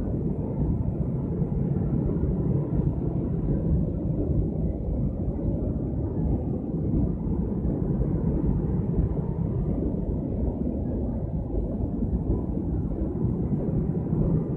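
Passenger coaches of a departing KAI Purwojaya train rolling past, with a steady low rumble of wheels on rails.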